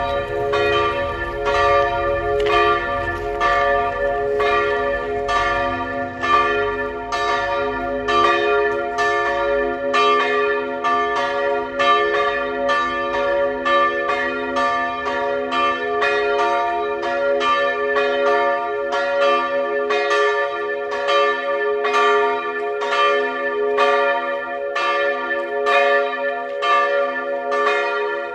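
Two swinging church bells, tuned to b' and d'', ringing together in full peal to call to mass. Their strikes come more than once a second in an even, overlapping rhythm, each tone ringing on under the next.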